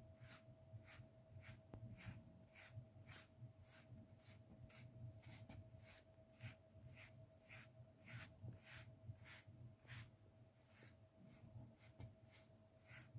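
Faint, rhythmic scratching of a wire-bristled grooming brush drawn through a heavily shedding cat's coat, about three strokes a second, over a faint steady hum.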